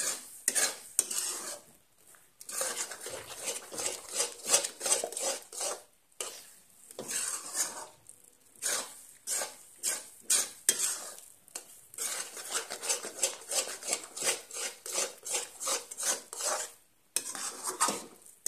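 Metal spatula scraping and stirring thick banana halwa round a metal kadai, in runs of quick strokes broken by short pauses. The halwa is being kept stirred as it cooks, until it stops sticking and comes away from the pan.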